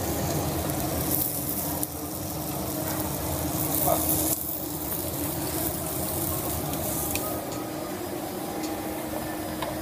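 Steaks sizzling on a hot grill, a hiss loudest in the first four seconds, over a steady low hum.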